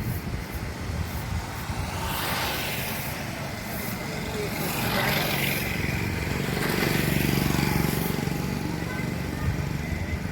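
Road traffic passing close by: motor vehicle engines and tyre hiss swelling and fading, with a louder engine passing about seven seconds in, under the chatter of people around.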